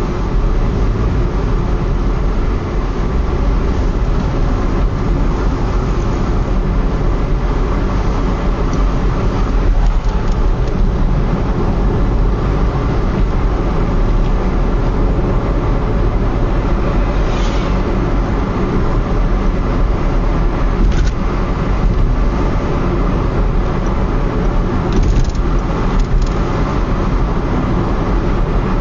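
Steady road and engine noise inside a moving Mitsubishi Colt Plus cabin, with a few brief, faint creaks or ticks from the car's glass, the abnormal glass noise the owner is chasing, heard about two-thirds of the way through and again near the end.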